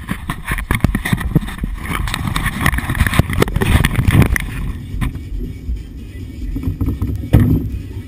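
Cab noise of a MAN TGX 540 timber truck on a rough forest track: a low rumble from its straight-six diesel and the running gear. Dense knocking and clatter fill the first half, then the rumble steadies, with one sharp thump about seven seconds in.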